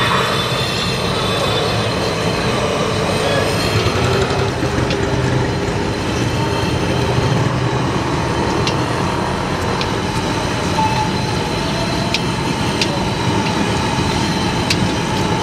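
A bhatura deep-frying in hot oil in an iron kadai, sizzling steadily, with a few sharp ticks in the second half. The sizzle sits over steady, dense street noise.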